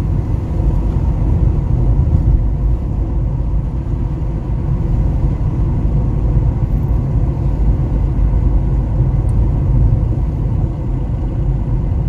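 Mercedes-Benz car driving at road speed, heard from inside the cabin: a steady low rumble of engine and tyre noise.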